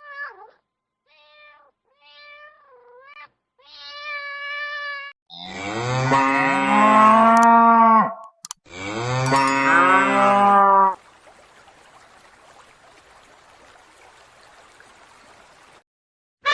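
A cat meowing four times in short calls, then two long, loud, low moos from cattle, followed by a faint hiss.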